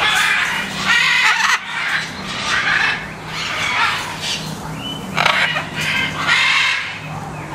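Parrots squawking: a series of harsh, raspy calls, about one a second, over a low steady hum.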